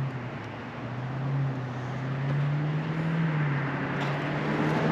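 Road traffic: a motor vehicle's steady engine hum and tyre noise, growing louder over the few seconds as it approaches.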